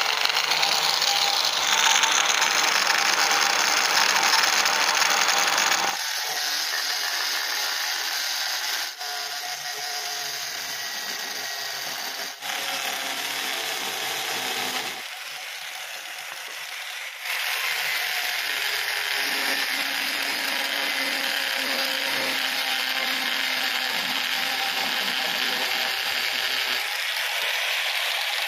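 Electric angle grinder spinning a CD in place of a cutting disc, grinding into a piece of wood. The steady grinding noise jumps abruptly in level several times.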